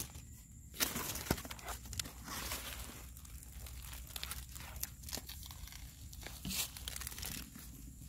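Damp clay soil being dug out in clods: lumps tearing loose with their roots and crumbling, with a few sharp knocks.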